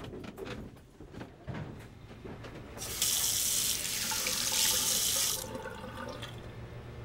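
A bathroom faucet runs into a porcelain sink as hands are rinsed under the stream. The water comes on sharply about three seconds in and is shut off about two and a half seconds later.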